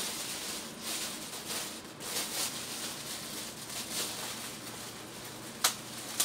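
Clear plastic bag crinkling and rustling in repeated bursts as it is handled and pulled open, with a sharp click near the end.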